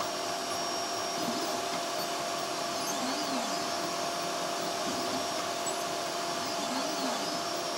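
A homebuilt 3D printer running a print. Its hotend and part-cooling fans whir steadily, and its stepper motors sing in short rising-and-falling whines as the print head moves back and forth.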